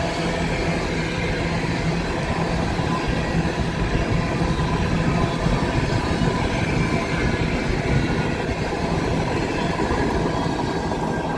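Empty coal hopper cars of a long freight train rolling steadily past: continuous wheel-on-rail noise with a steady low hum.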